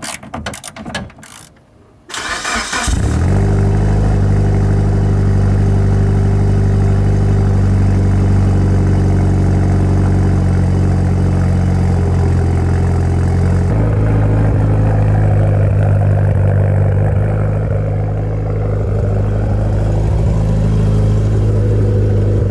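Car engine cranking and catching about two seconds in, then settling into a steady idle; the idle note shifts about 14 seconds in. The engine is a Mitsubishi Lancer Evolution VIII's turbocharged four-cylinder.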